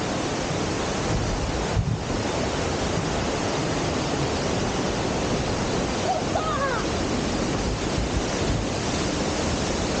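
Waterfall close by: falling water making a loud, steady rush, with wind buffeting the microphone.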